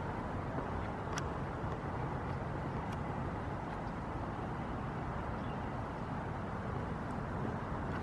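Steady outdoor background noise, low and even, with a few faint clicks about a second and three seconds in.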